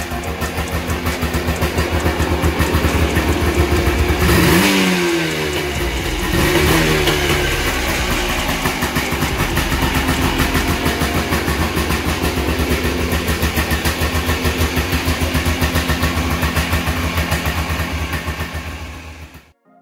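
1981 Honda ATC250R's two-stroke single-cylinder engine idling with a fast, even putter, blipped twice about four and six seconds in, the revs rising and dropping back. The sound cuts off abruptly near the end.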